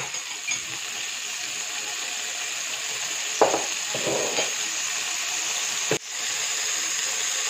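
A tablespoon of cooking oil sizzling steadily in a hot nonstick frying pan over browned chicken-marinade residue. A short knock sounds about three and a half seconds in, and the sizzle dips sharply for a moment near six seconds before carrying on.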